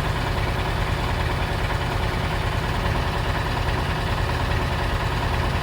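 KamAZ truck diesel engine idling steadily while its engine-driven air compressor pumps up the air brake system, a noisy rapid rattling over the engine's low rumble.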